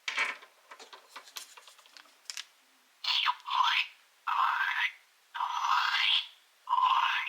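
Small clicks and scratches of plastic toy handling, then the Young Sven interactive toy reindeer plays four short sound effects through its small built-in speaker, each about a second long and sweeping in pitch.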